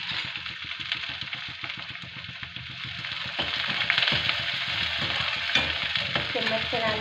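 Chopped onions and cumin sizzling in hot oil in a stainless steel kadai, the sizzle getting louder about halfway through as a slotted steel spatula starts stirring them, with small clicks of the spatula against the pan.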